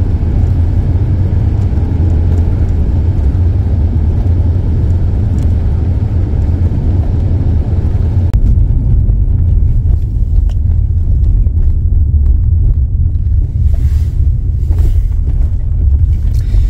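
Honda Element's cabin noise while driving on the highway: a steady low rumble of road and engine. The higher hiss drops away about halfway through.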